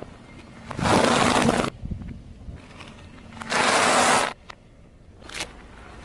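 Car tyre crushing brittle snacks on asphalt: two loud crunches about a second long each, the second from a scatter of dry yellow sticks snapping under the tread, followed by a couple of short sharp cracks.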